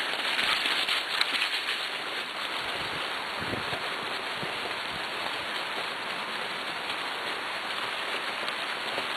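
Steady rushing noise of a dog-drawn cart rolling fast along a leaf-covered dirt trail, its wheels running over dry leaves and earth, a little louder in the first second or so.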